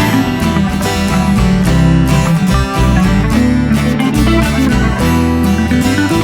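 Background music led by guitar, with plucked and strummed strings over a bass line and a steady beat.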